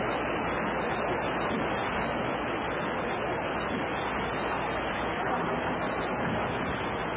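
Fast-flowing floodwater rushing steadily, an even noise with no breaks.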